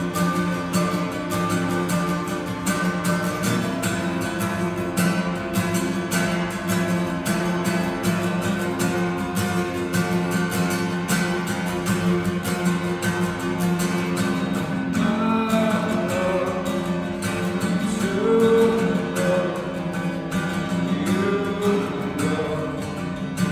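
Acoustic guitar playing a steady run of picked notes over ringing chords, in an instrumental passage of a folk song.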